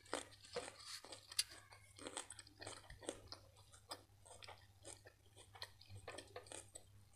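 Close-miked chewing of a raw green pepper: soft, irregular crunches and wet mouth clicks, several a second, over a faint steady low hum.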